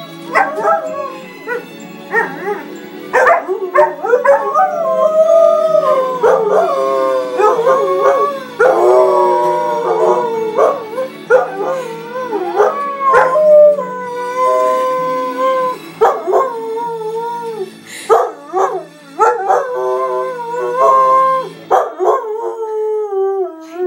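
Dog howling along to a TV theme tune, in long drawn-out howls that glide up and down in pitch. The low backing music drops out near the end while the last howl trails off.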